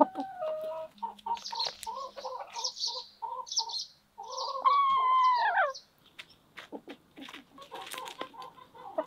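Hens clucking in short repeated notes, with high chirps above them. About five seconds in comes one loud drawn-out call, about a second long, that falls in pitch at the end. After it, softer scattered taps of beaks pecking at food on the ground.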